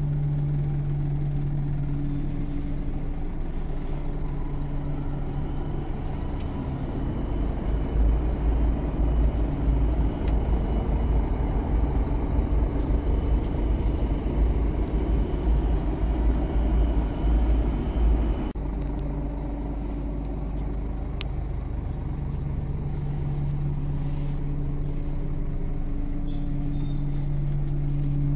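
Steady hum of a Scania multi-axle sleeper bus standing with its engine and air conditioning running, heard inside the cabin. A deeper, uneven low rumble comes in about a quarter of the way through and cuts off suddenly about two-thirds through.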